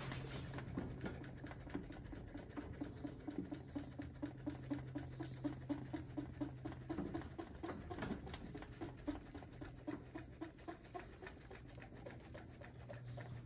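Hand priming pump on a 12-valve Cummins diesel's fuel system being worked by hand in short repeated strokes, about two to three a second, pushing air out of the filter housing and lines while the system is bled. A steady low hum runs underneath.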